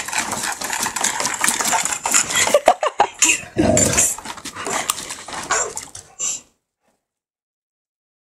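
Pit bull worrying crawdads in a plastic tub: dog noises mixed with rapid scraping and knocking against the tub. The sound cuts off abruptly about six and a half seconds in.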